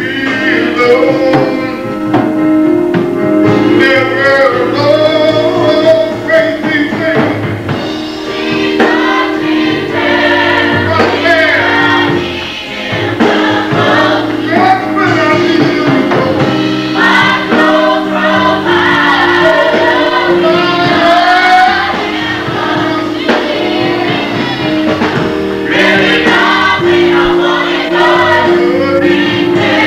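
Gospel choir singing together with a male lead voice, over keyboard accompaniment holding steady low chords.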